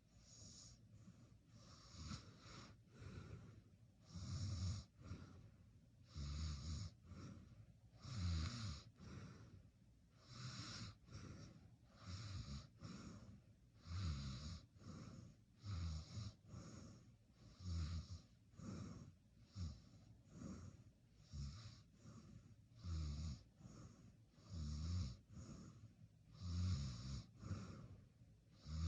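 A sleeping person snoring in a steady rhythm, about one snore every two seconds, each with a low rumble and an airy hiss of breath.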